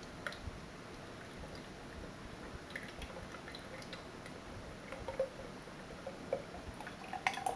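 Thick black sesame drink pouring slowly from a bottle into a cup, with faint drips and gurgles. The drink is thick enough that it takes a long time to pour.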